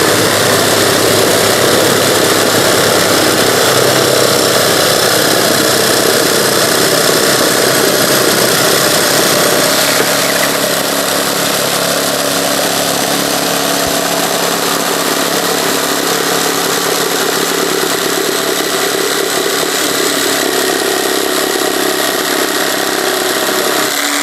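Cordless jigsaw (TICHOP TJS-18-B) cutting at full speed through a dense, fairly thick wooden board, a steady saw noise; it gets a little quieter about ten seconds in.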